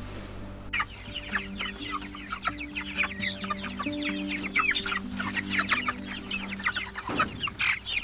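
A flock of young Cornish cross meat chickens calling: many short, overlapping calls, over soft background music with held notes.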